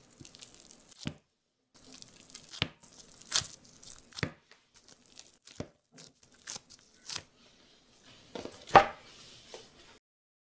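Gloved fingers pressing a ball of crumbly cookie dough flat on a silicone baking mat: soft crackling and glove creaks with a string of sharper ticks, the loudest near the end.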